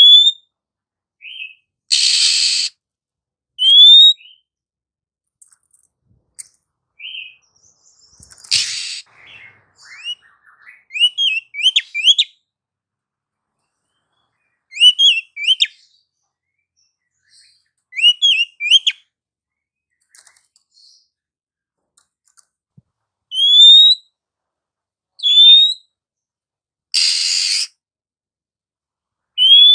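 Female oriental magpie-robin calling: short, clear rising whistles, often in quick groups of two or three, broken by three harsh rasping bursts, each under a second long.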